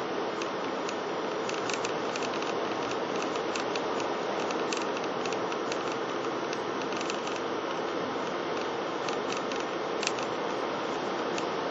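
A car driving along a road: steady road and engine noise, with many small clicks and rattles scattered through it.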